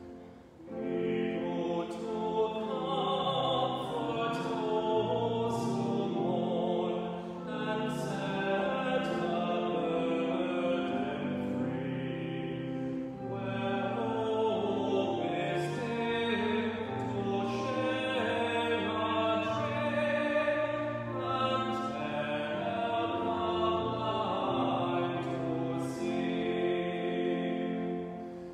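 A male solo voice singing a hymn in full voice, with organ accompaniment holding sustained chords beneath. The singing pauses briefly between phrases, and there is a short gap just after the start and another near the end, like the breaks between verses.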